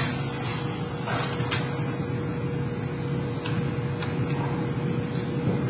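Aviation snips notching sheet-metal duct pieces: a handful of short, sharp metal snips and clicks at irregular intervals. Under them runs a steady low hum with a faint steady tone.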